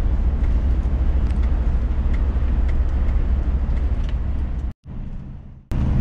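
Steady low drone of a heavy truck's engine and tyres on a wet highway, heard inside the cab. About three-quarters of the way through, the sound cuts out abruptly for about a second, then comes back with a slightly different hum.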